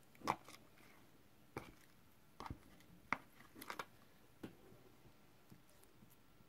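Homemade glue-and-borax slime being pulled out of a plastic tub and squeezed in the hands: a scattering of faint, short squelches and clicks at irregular intervals.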